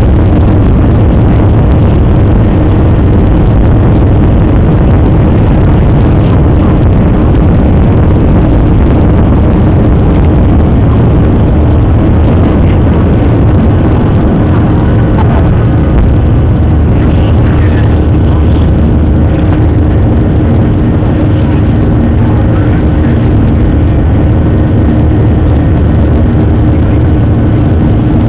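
Jet airliner's underwing turbofan engines running at takeoff power, heard from inside the cabin through the takeoff run and climb-out: a loud, steady noise with a deep drone and a steady hum over it.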